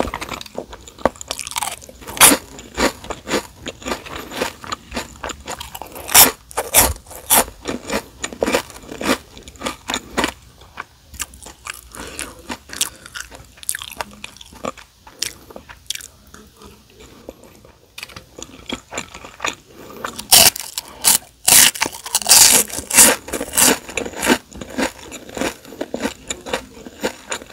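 Close-miked eating sounds: crisp, crackling bites and chewing of fried seaweed chips (gim-bugak), mixed with softer chewing of fried rice. The crunching is loudest about six seconds in and again from about twenty to twenty-four seconds in.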